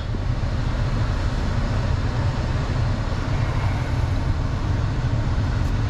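Steady rush of air from the dash vents of a 2021 Honda Ridgeline's climate system, over the low, even hum of its V6 engine idling.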